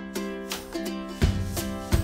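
Background music with plucked-string instruments and a regular bass beat.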